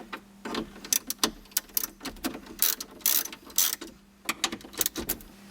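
A socket ratchet clicking in short irregular bursts as 10 mm bolts are backed out of a car radio's mounting bracket. The clicking stops shortly before the end.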